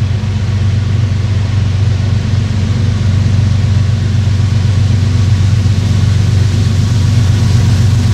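Diesel freight locomotives approaching out of sight: a steady low engine drone that slowly grows louder, with a rising hiss toward the end.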